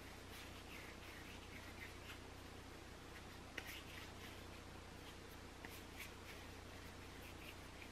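Faint soft rubbing of hands rolling a rope of bagel dough between the palms, with a small tick about three and a half seconds in and another near six seconds, over a steady low hum.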